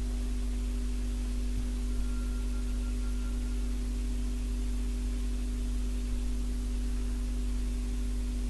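Steady electrical hum: a deep, even drone with a few steady higher tones on top and a faint hiss. It is background noise from the recording setup, with no speech.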